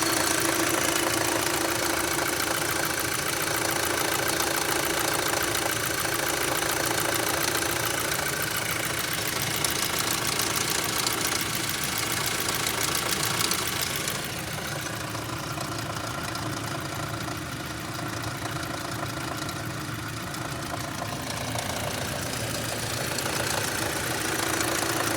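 2006 Audi A3's 2.0-litre four-cylinder engine running steadily at idle with an ongoing noise that persists even after the oil sump was cleaned. The sound turns duller about halfway through and brightens again near the end.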